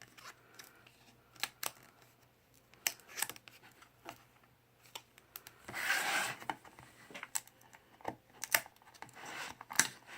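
Pages and card flaps of a lift-the-flap children's book being turned and opened. Scattered light clicks and taps, with a longer paper swish about six seconds in.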